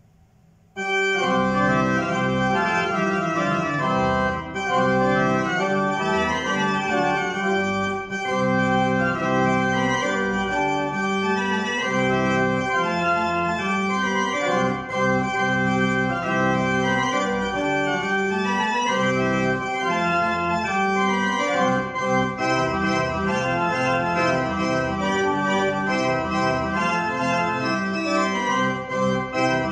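A 1793 Johann Wilhelm Grüneberg pipe organ playing a gigue, coming in about a second in. Its full, sustained chords sit over a moving bass line.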